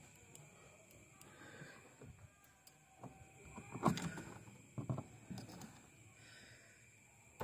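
Clicks and knocks from a power window switch circuit board being handled against the door trim, loudest about four seconds in, with a few more clicks a second later.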